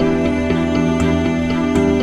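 Background music: a soft new-age style tune with plucked guitar-like notes on a steady beat.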